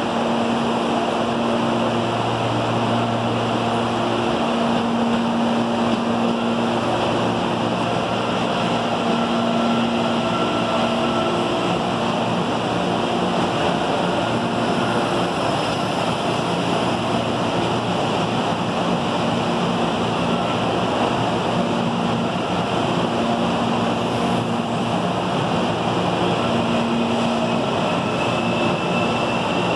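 CPTM electric commuter train at the platform: a steady rushing noise with a low electrical hum that fades in and out.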